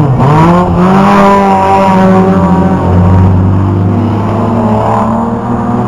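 Several rear-wheel-drive banger racing cars' engines revving hard as they accelerate out of a bend and pass close by, more than one engine at once. The pitch climbs in the first second or so and rises again near the end.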